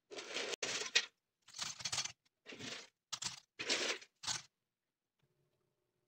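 Crunchy caramel-coated popcorn rattling and clattering in a ceramic bowl as it is handled, in about six short bursts over the first four and a half seconds. The hard, brittle rattle is the sign that the caramel shell has set crisp.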